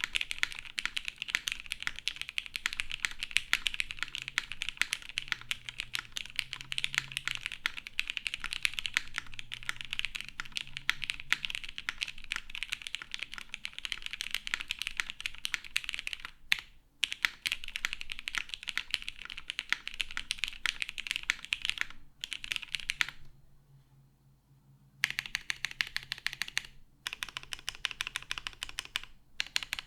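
Steady, rapid typing on a custom mechanical keyboard with lubed vintage Cherry MX Black linear switches on an aluminum half plate and GMK keycaps. It goes on in a dense run of key clicks with a few short breaks, and stops for about two seconds around 23 seconds in.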